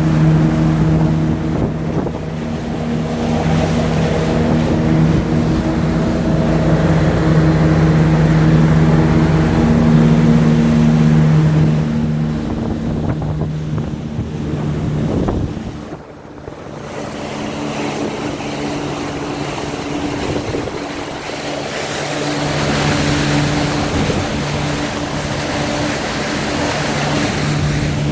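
Heyday wake boat's inboard engine running steadily at wakesurf speed, with wind and rushing water over it. There is a brief drop in loudness about two-thirds of the way through.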